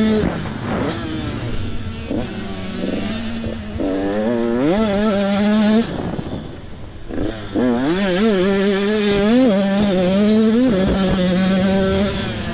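Supermini motocross bike engines revving, the pitch climbing and dropping again and again with the throttle, briefly quieter a little past the middle.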